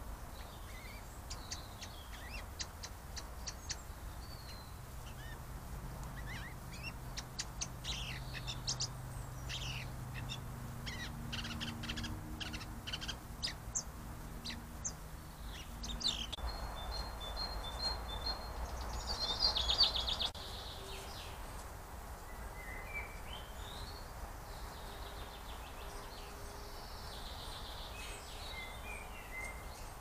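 Small woodland songbirds calling with short chirps and whistles, including a quick run of repeated high notes and a louder flurry about two-thirds of the way in. A faint low drone sits under the calls in the first half.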